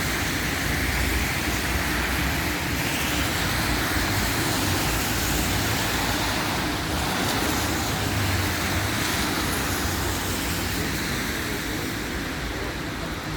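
Steady road traffic noise on rain-wet streets, a continuous hiss of passing vehicles that eases slightly near the end.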